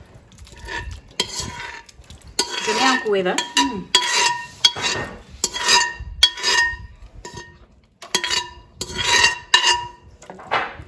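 A metal utensil stirring and scraping in a metal pot, in about ten irregular strokes, each leaving the pot's ringing tone.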